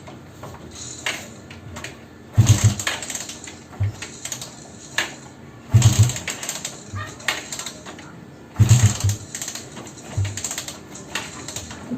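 Suzuki Raider 150 being kicked over three times, about three seconds apart, each kick a short clattering burst with a low thump, without the engine catching: hard starting, which the owner puts down to water in the carb or spark plug.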